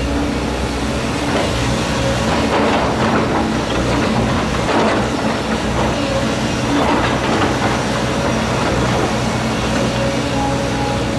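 Volvo EC210 tracked excavator working: its diesel engine runs steadily under load, with a rough grinding and scraping noise from tearing up the road that swells a few times.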